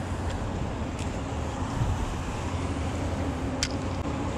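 Steady low outdoor background rumble with two faint clicks, one about a second in and one near the end.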